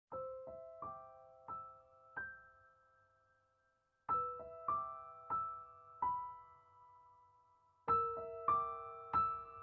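Background piano music: three slow phrases of a few notes each, about four seconds apart, each note ringing and fading away.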